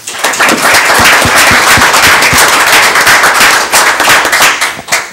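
Audience applauding: many hands clapping loudly together, starting at once and dying away near the end.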